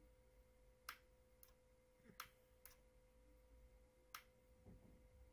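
Five sharp, unevenly spaced clicks over about three seconds, from toggle switches on an RC transmitter being flipped and a computer mouse being clicked. A faint steady hum lies under them.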